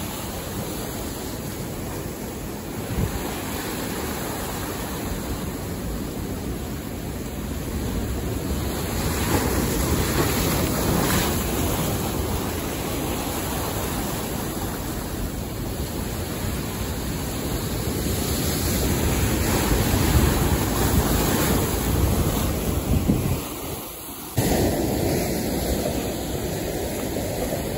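Ocean surf breaking and washing against a rock jetty, with wind buffeting the microphone. The surge swells louder twice, and drops off briefly near the end before coming back.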